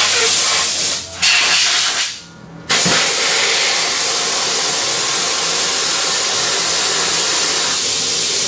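Compressed air hissing loudly from an air hose. It blasts, breaks briefly about a second in, stops for under a second, then resumes and runs steadily.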